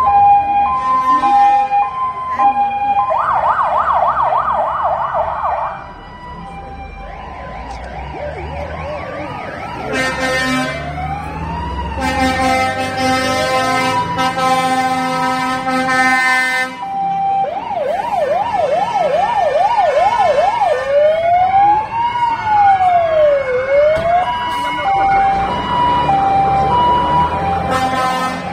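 Several fire engine sirens sounding together: a two-tone hi-lo siren alternating steadily, overlaid with rapid warbling yelps and slower rising-and-falling wails. A long horn blast comes about twelve seconds in.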